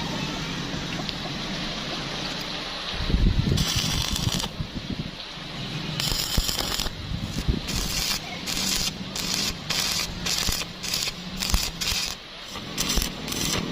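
Electric arc welding: a longer crackling burst of arc a few seconds in, then a quick run of short arc strikes, about two or three a second, as in a string of tack welds.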